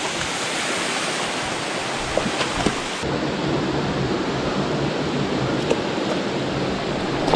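Small waterfall pouring into a pool: a steady rush of falling water, with a few faint clicks.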